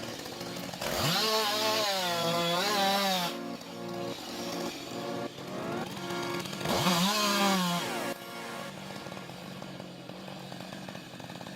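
Chainsaw engine running at high revs, cutting wood, its pitch wavering up and down. It is loudest in two spells, about a second in and again near the middle, and runs quieter in between.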